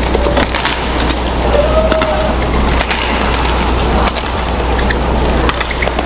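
Badminton rackets hitting the shuttlecock in a fast rally, heard as a series of sharp, irregular hits, with a brief shoe squeak on the court, over steady arena background noise.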